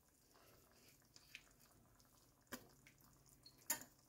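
Worcestershire sauce shaken from its bottle, a few drops falling into a pan of ground beef and vegetables: faint drips over near silence, the loudest near the end.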